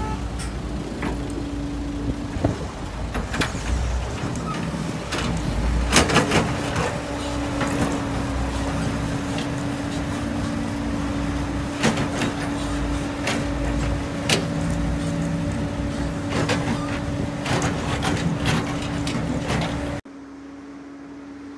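Diesel engines of a dump truck and excavator running steadily with a held whine, over scattered sharp knocks and clanks and low rumbling swells. Near the end the sound drops suddenly to a quieter engine hum.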